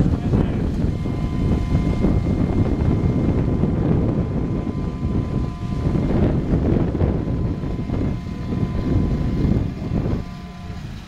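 Electrofishing boat's motors running steadily with a thin steady whine over a low rumble, with wind buffeting the microphone; the sound drops off briefly about ten seconds in.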